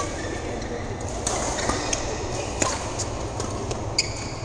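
Badminton rally in a large hall: several sharp racket-on-shuttlecock hits about a second apart, with a short squeak of court shoes near the end, over a steady low hum.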